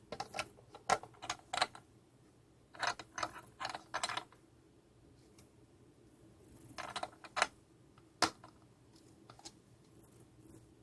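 Small clicks and rattles from handling the plastic casing of a wireless range extender and a metal screwdriver while it is put back together. They come in three short clusters and one single sharp click, with quiet gaps between.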